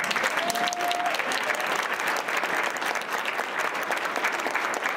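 An audience clapping in a hall: dense, steady applause. A short held tone rises briefly above it about half a second in.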